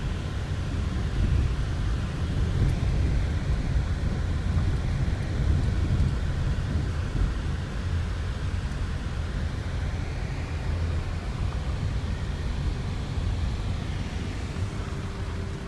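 Car driving on an unpaved gravel road, heard from inside the cabin: a steady low rumble of tyres and engine with road noise. A faint steady hum joins near the end.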